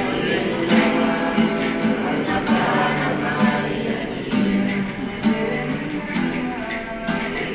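A mixed group of men and women singing together, accompanied by a steadily strummed acoustic guitar.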